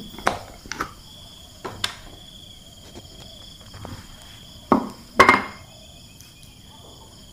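Light clicks and knocks of a glass jar being opened and handled, with two louder knocks close together about five seconds in as a glass dish is set down on a wooden table. Insects chirp steadily in the background.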